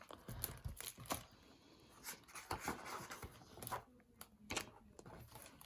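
Faint rustling and soft taps of a hardcover picture book being opened and its pages turned by hand, in short scattered bursts.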